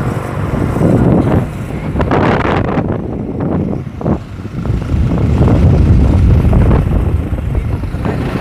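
A motor vehicle running as it moves along a road, with loud, uneven rumble and wind buffeting on the microphone.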